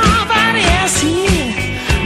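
Pop-rock music playing: a steady drum beat under a melody that slides up and down in pitch.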